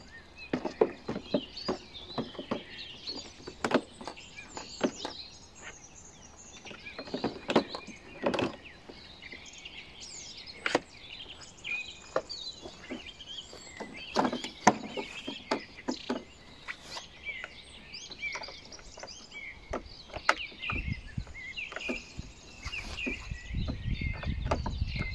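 Clicks and knocks of plastic parts as a cordless lawn mower's handle and grass catcher are handled and fitted, with birds chirping throughout. A low rumble comes in near the end.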